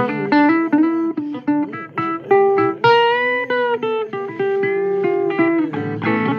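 Blues record in an instrumental break between sung lines: a guitar plays a quick run of single plucked notes, holding one note for about a second midway. Lower notes join in near the end.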